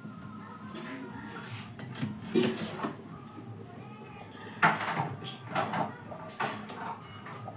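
Metal pot lid clattering and knocking on a metal kadai as it is set in place, with scattered kitchenware clinks. The loudest knock comes about halfway through.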